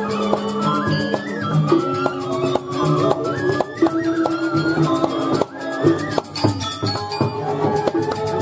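Balinese gamelan playing: bronze metallophones and gongs over drums and cymbals in a fast, busy rhythm.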